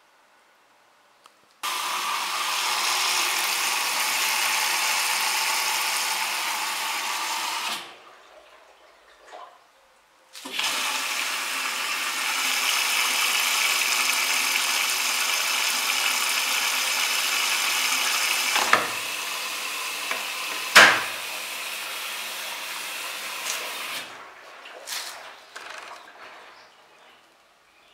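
Siemens iSensoric WM12N2K7GR washing machine taking in water: a loud, even rushing hiss of water pouring in through the detergent drawer. It runs for about six seconds, stops for a couple of seconds, then starts again and runs for about thirteen seconds, with two sharp knocks in the second fill.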